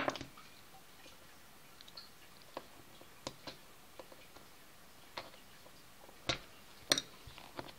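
Scattered light clicks and ticks of a blue plastic tool working at the edge of a Samsung Galaxy Note's plastic frame, with two sharper clicks near the end.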